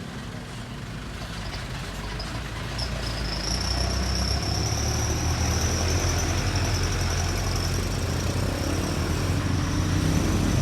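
A bus engine rumbling and growing louder as the bus approaches. From about three seconds in, a steady high-pitched whine runs over it.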